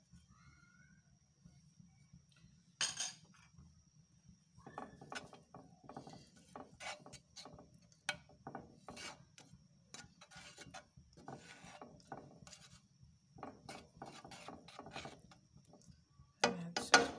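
A spoon scraping butter around a non-stick frying pan in a run of short scraping strokes and clicks. There is a sharp tap about three seconds in and a louder knock near the end.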